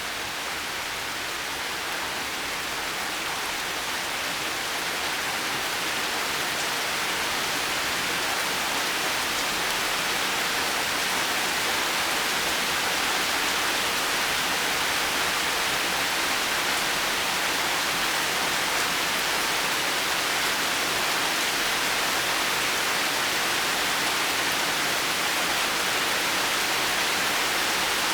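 Steady heavy rain, a dense even hiss without distinct drops or thunder, growing a little louder over the first ten seconds or so.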